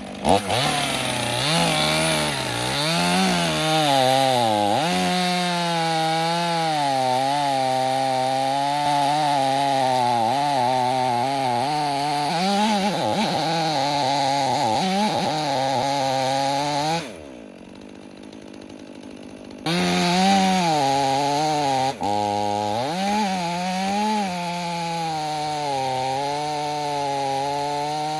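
Stihl chainsaw running at high revs and cutting through knotty wood, its pitch sagging and recovering again and again under the load. About seventeen seconds in it drops away to a low level for a few seconds, then comes back suddenly at full speed.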